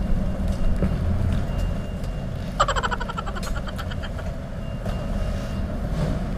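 Steady low rumble of vehicle engines and traffic, with a brief buzzing tone about two and a half seconds in that lasts about a second.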